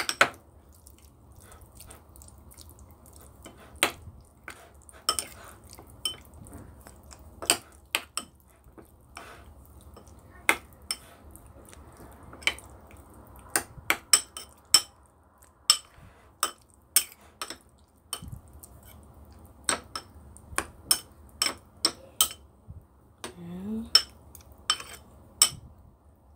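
A metal spoon clinking and scraping against a ceramic bowl in irregular strikes while stirring minced pork.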